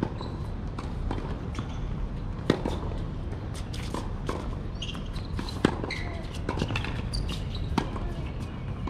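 Tennis rally: the ball is struck by rackets and bounces on the hard court, a string of sharp pops. The two loudest hits come about three seconds apart, over a steady outdoor background hum.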